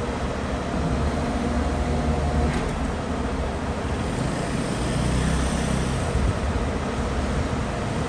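Heavy construction machine's diesel engine running with a steady low rumble, a faint whine in the first seconds.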